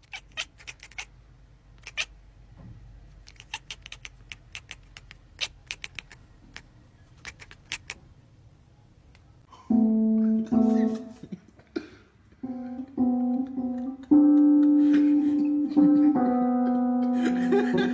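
Scattered sharp clicks or taps, then from about ten seconds in, loud piano notes and chords that change every second or so.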